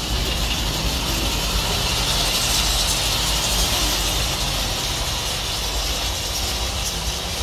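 O gauge model train running on the outdoor layout: a steady low rumble with a hiss that swells about halfway through and then eases.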